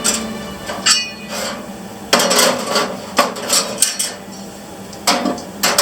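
Metal panels of a homemade folding fire pit clanking and scraping as they are packed into the fire pit's storage case, in a string of separate knocks and clatters.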